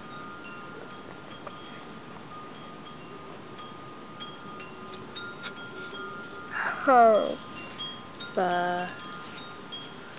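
Wind chimes ringing softly, with scattered tones at several pitches that overlap and fade. About six and a half seconds in, a voice makes a short falling sound, and about two seconds later a brief steady held vocal sound.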